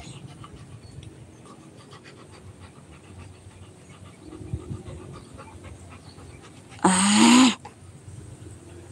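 Rottweiler panting steadily. About seven seconds in comes a single loud call, rising in pitch, lasting under a second.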